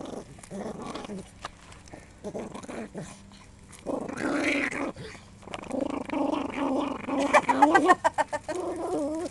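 Miniature pinscher growling as she guards a raw bone she is gnawing. Faint gnawing sounds come first, then a low continuous growl starts about four seconds in and breaks into a quick run of loud snarls near the end.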